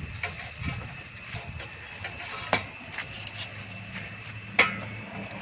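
Handling noise from fitting a solar water heater's glass tubes and frame: scattered light clicks and knocks, two sharper knocks about two and a half and four and a half seconds in, over a steady low hum from about three seconds in.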